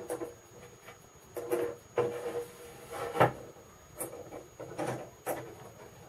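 Garrett ACE 250 metal detector sounding short low tones as a stack of copper coins is passed over its coil. The tones are broken up by rubbing and several sharp knocks of handling, the loudest about three seconds in.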